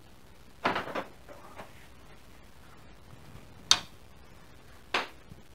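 Large steel engine lid of a 1954 VW barndoor bus being unlatched at its handle and swung open: a short run of metallic knocks and rattles under a second in, then single sharp metal clicks near four and five seconds as the lid goes up on its hinges.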